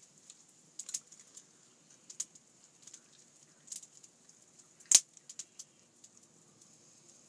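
Wood fire crackling: irregular sharp pops and clicks over a faint hiss, with one loud pop about five seconds in.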